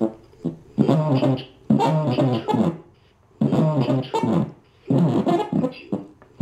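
An interactive solar system toy's sound played through a modified voice-to-saxophone toy, coming out as buzzy, horn-like, speech-shaped phrases with short pauses between them, the longest about halfway through.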